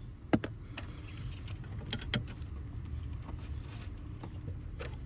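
Scattered light metallic clicks and taps from a wrench working the last nut off the steering column mount of a 1987 Ford F-150, with a steady low hum underneath.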